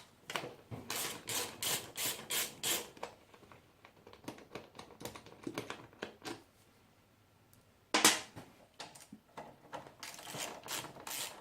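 Ratchet with a 10 mm socket clicking as the seat mounting bolt is undone: a run of sharp clicks about three a second, then sparser clicks, a short pause, one louder clack about eight seconds in and more clicking near the end. The bolt is loose.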